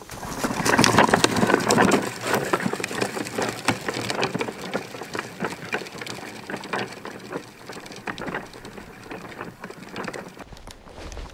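A wheeled plastic cooler being towed along a dirt trail, its wheels rattling and crunching over the ground along with footsteps. It is loudest about a second in as it passes close, then fades as it moves away.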